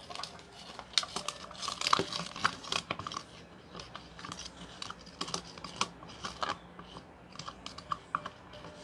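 Homemade slime of glue and baking soda being stirred: irregular sticky clicks and crackles, busiest in the first few seconds and again past the middle.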